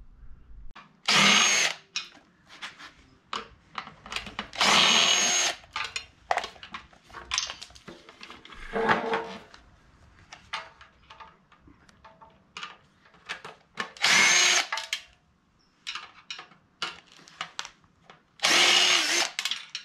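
Cordless driver run in five short bursts of about a second each, driving screws at the base of a 12-volt air compressor, with small metallic clicks and clinks of handled parts between the bursts.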